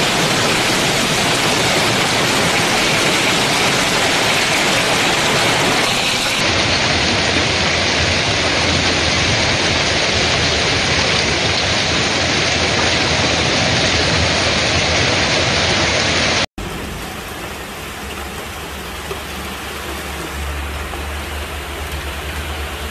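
Heavy rain mixed with hail pouring down, a dense steady hiss. It changes abruptly twice as the recordings are spliced, and is softer after a cut about two thirds of the way in.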